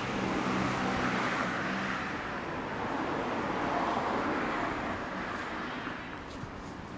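Road vehicle noise, swelling about a second in and again near four seconds, then fading, like a vehicle passing by.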